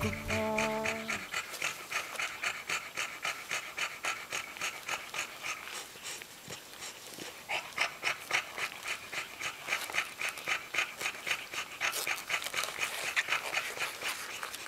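Mother bulldogge panting rapidly and steadily while nursing, about four breaths a second. The last notes of background music fade out about a second in.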